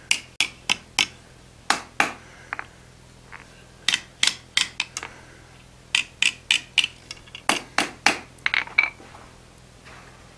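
Hand hammer striking a red-hot iron bar over the edge of an anvil, curling the end into a ribbon scroll. The blows are light and come in quick groups of two to five with short pauses between them, and stop near the end.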